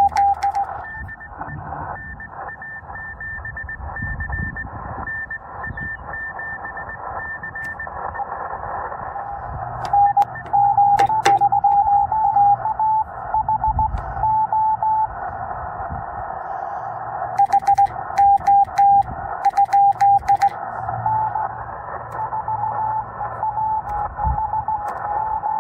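Morse code (CW) tones from a Yaesu FT-891 transceiver over 20-meter band hiss: a faint higher-pitched station keys dots and dashes for the first several seconds, then a lower tone keys on and off for the rest. About ten seconds in, and again around eighteen seconds, come louder stretches of keying with sharp clicks.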